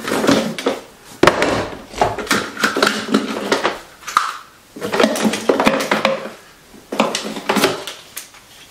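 Hair dryers and other plastic hair tools clattering and knocking together as they are rummaged through in a drawer, with cords dragging and rustling; the clatter comes in several bursts.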